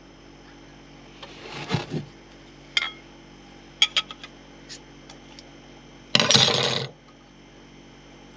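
A few clinks and clicks, then a beer opened with a sharp, loud hiss lasting under a second, about six seconds in. A steady low hum runs underneath.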